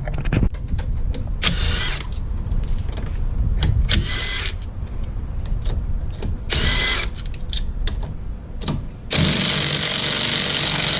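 Cordless impact wrench undoing wheel nuts. It fires in three short bursts, then runs steadily for about two seconds near the end.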